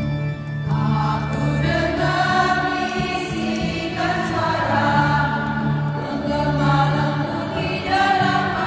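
Church choir of women singing a hymn over steady organ accompaniment, the voices coming in about a second in.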